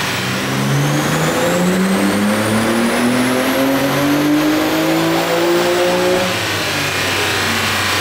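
BMW M3 (G80)'s twin-turbo S58 inline-six making a full-throttle pull on a chassis dyno: the engine note climbs steadily in pitch for about six seconds, with a faint high whine rising with it, then drops away as the throttle is lifted.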